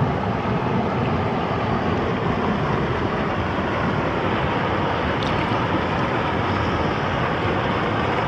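Steady rushing noise of wind and river water, with no distinct splashes.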